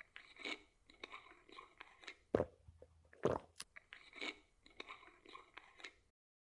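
A run of crunching, crackling clicks from something handled up close, with two louder knocks about two and a half and three and a half seconds in. The sound cuts off abruptly just after six seconds.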